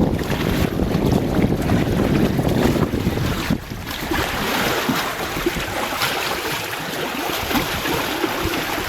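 Wind buffeting the microphone on a moving sailboat, over the rush of water. A heavy low rumble drops away about three and a half seconds in, leaving a steadier hiss.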